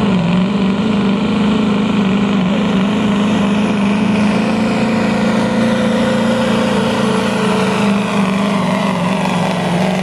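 Hot rod semi truck's diesel engine running at full throttle while pulling a sled down the track, a loud steady drone. Its pitch drops a little at the start and then holds steady under the load.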